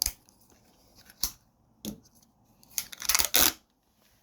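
Sharp clicks and knocks from handling the safe's removed electronic keypad panel: a few single clicks, then a quick cluster of clicking and rattling about three seconds in.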